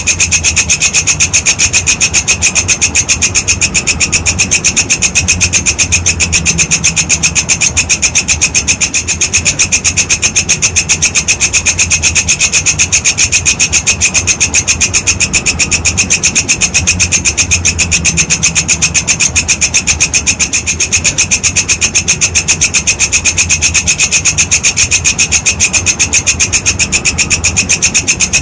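Walang kecek insect calling non-stop: a loud, steady, rasping chirr made of fast, even pulses, about six a second, with no break.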